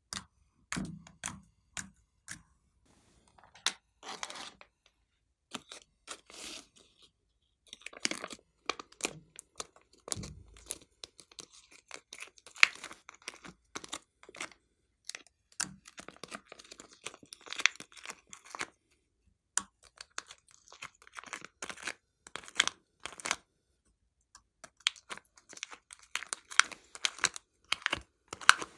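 Thin clear plastic tray crackling and clicking as fingers squeeze and peel soft clay out of its cells. Irregular clusters of sharp crackles with short pauses between them.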